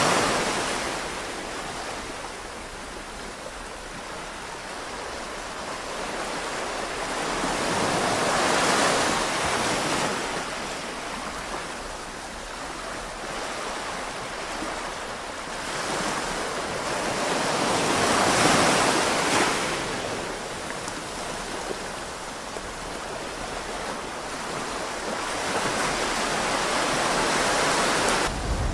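Small waves breaking and washing up the shore, the surf swelling and fading roughly every nine to ten seconds.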